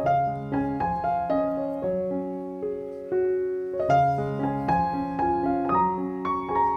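Background piano music: single notes and chords struck one after another and left to ring.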